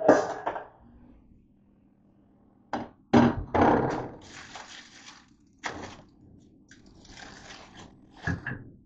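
Handling noises: several short knocks and thuds, then a paper bag rustling as cookies are shaken out of it onto a plate. A sharper knock comes near the end.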